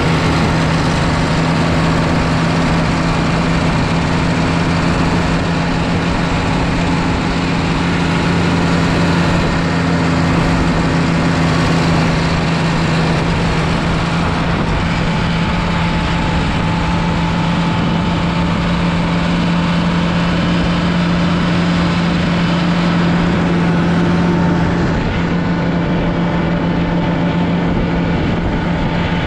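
Oliver 2255 tractor's Caterpillar 3150 V8 diesel engine running at a steady speed while the tractor drives through snow.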